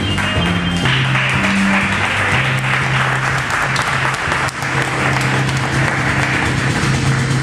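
Audience applauding over music with a steady low bass line, the clapping swelling in about a second in.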